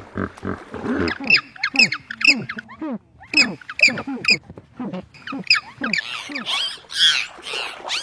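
A rapid series of short, high animal calls, each bending in pitch, coming two or three times a second and getting harsher and noisier near the end.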